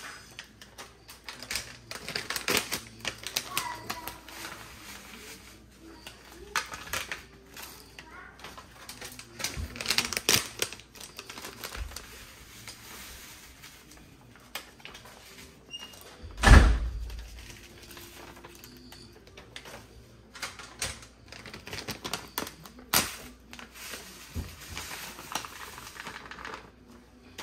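Kitchen handling sounds: scattered clicks, taps and knocks of utensils and containers being worked with, with one loud thump a little past halfway.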